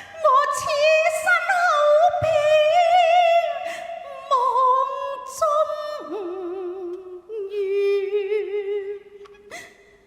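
Cantonese opera music: a single melodic line of long, wavering held notes sliding between pitches, settling on a long low note that fades away near the end.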